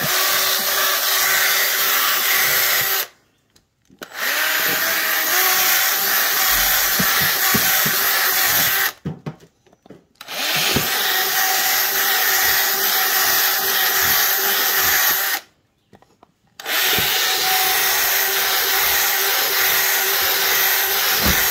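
Cordless drill running in four long runs of a few seconds each, stopping briefly between them, with a steady motor whine.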